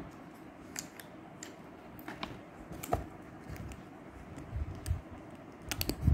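Scattered light clicks and taps of small cosmetics packaging and lipstick cases being handled, with a few dull thumps in the second half and a quick run of louder clicks near the end.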